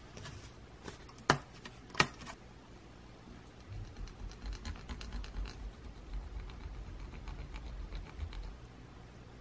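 Two sharp snaps, about a second and then two seconds in, as a laser-cut plywood gear piece is pressed out of its sheet. Then, from about four seconds in, a wax block rubbed along the small wooden gear teeth to make them turn smoothly: a run of fast, faint ticks over a low rubbing sound.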